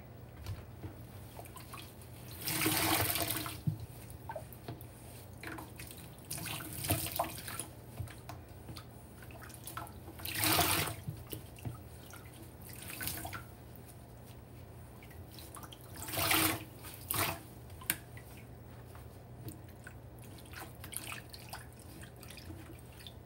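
Soaked kitchen sponges squeezed by gloved hands in a stainless steel sink, water gushing and splashing out in bursts every few seconds, with dripping and trickling between squeezes.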